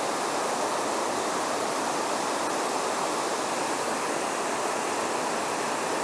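Small tiered waterfall, creek water spilling over layered rock ledges in a steady, even rush.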